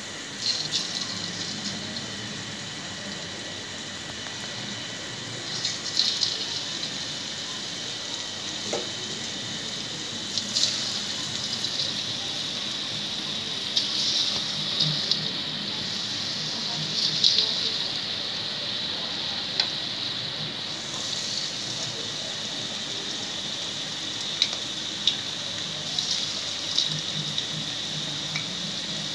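Batter-coated chicken strips deep-frying in hot oil in a wok: a steady sizzle with crackles, surging louder several times as more pieces are dropped in.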